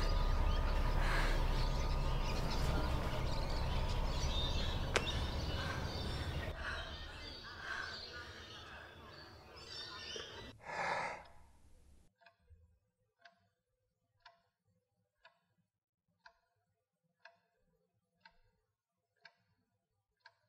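Outdoor ambience with a steady low rumble that fades away, then a sharp breath about eleven seconds in. After a sudden cut, a clock ticks about once a second in a quiet room.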